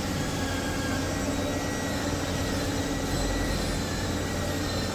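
CNC milling machine running with a steady hum and a constant high whine.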